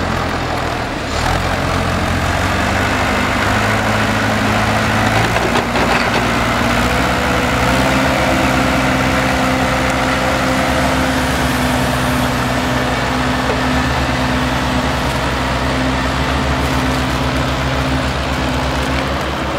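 Heavy diesel engines of a wheeled excavator and tractor running steadily, with the engine note picking up about a second in.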